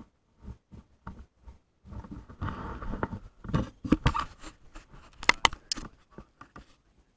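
Handling noise from the camera being moved about: rustling and scraping against clothing, with scattered clicks and a few sharp knocks a little past the middle.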